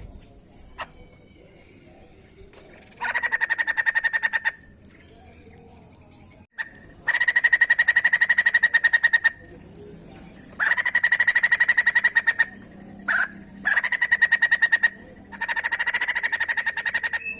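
White-crested laughingthrush calling: five bursts of fast trilled chatter, each one to two seconds long, with short pauses between them.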